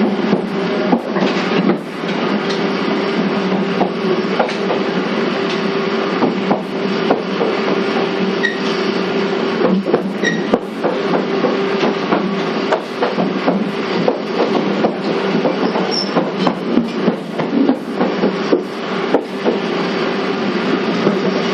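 Running noise heard inside a JNR 485-series electric train's motor car, MoHa 484, under way. A steady hum runs beneath a dense rumble, broken by frequent irregular clicks from the track.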